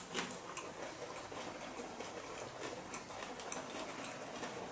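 Faint close-up chewing of a fresh spring roll filled with herbs, cucumber and bean sprouts: a stream of soft small clicks and crunches from the mouth.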